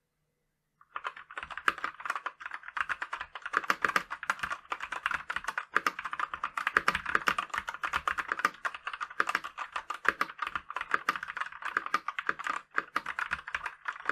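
Typing on a Motospeed SK84 mechanical keyboard with lubed red Gateron linear switches, foam dampening and lubed stabilizers: a fast, continuous stream of keystrokes starting about a second in, with a brief pause near the end.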